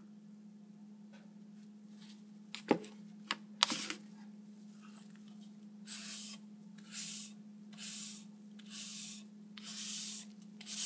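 Cloth pad wiping polyurethane finish onto a hardwood box: a few knocks a few seconds in, then from about six seconds in a regular swish of wiping strokes, about one a second.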